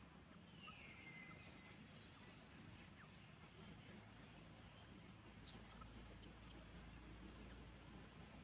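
Near silence with faint, high-pitched animal chirps and squeaks: a short falling whistle near the start, scattered short chirps after, and one sharper, louder chirp about five and a half seconds in.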